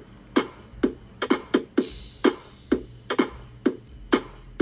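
Music with a punchy drum beat, a hit about every half second, played from a vinyl record on a Crosley suitcase record player through a genuine CZ-800 stylus.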